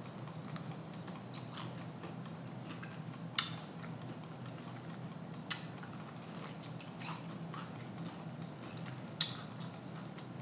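Close-up eating sounds: someone biting into and chewing fried food, with small wet ticks and three sharp clicks, about three and a half, five and a half, and nine seconds in, over a steady low hum.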